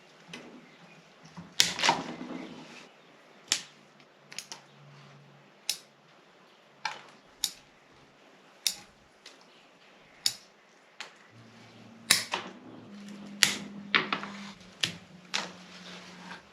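Bonsai pruning shears snipping twigs and leaves off a Ficus ginseng: about fifteen sharp snips at uneven intervals.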